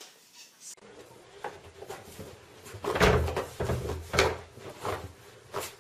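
A dog rolling and thrashing on carpet against a wooden door after its bath: dull thumps and rubbing as its body knocks the floor and door, the heaviest thumps about halfway through and again twice near the end.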